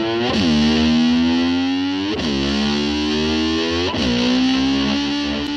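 Distorted electric slide guitar playing long held notes, swooping sharply down and back up in pitch about every two seconds, in the manner of a motor scooter revving.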